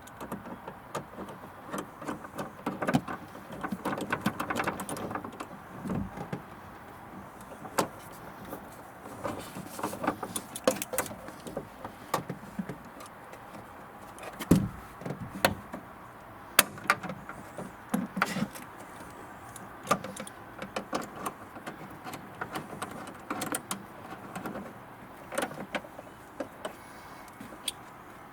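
Irregular clicks, knocks and light metallic rattles of tools and parts being handled while working on a car door, with a few heavier thuds.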